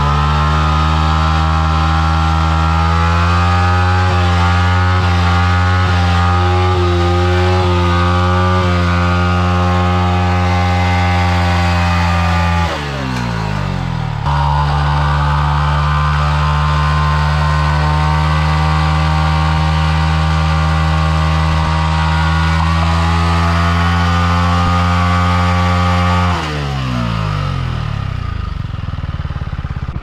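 Yamaha MT-15's 155 cc single-cylinder engine held at high, steady revs during a burnout, the rear tyre spinning on the road. The revs drop and climb back near the middle, hold high again, then fall away to lower running near the end.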